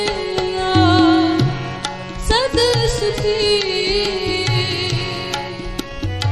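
Sikh kirtan: a woman singing long, wavering ornamented notes over harmonium and tabla, with sharp tabla strokes and deep bass-drum (bayan) hits under the melody.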